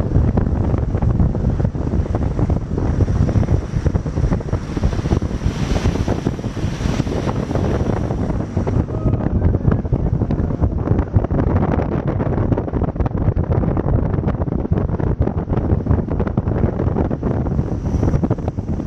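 Wind buffeting the microphone aboard a moving boat, with the steady rush of the boat running over the water underneath.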